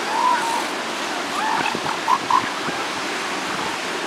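Steady wash of ocean surf on the beach, with a few short higher-pitched calls over it, one near the start and several about a second and a half to two and a half seconds in.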